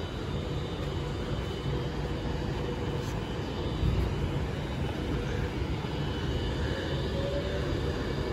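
Class 390 Pendolino electric train running through the station: a steady rumble with a faint whine.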